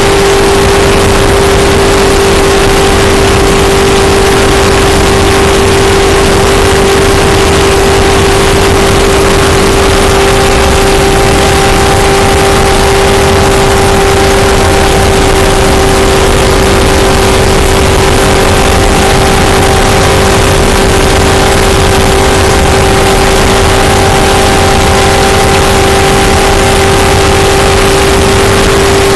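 NASCAR-style stock car's V8 engine running flat out at a steady, unchanging pitch, heard from inside the cockpit. Very loud, with a constant rush of wind and road noise.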